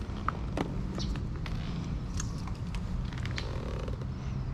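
Scattered faint clicks and light taps over a steady low hum.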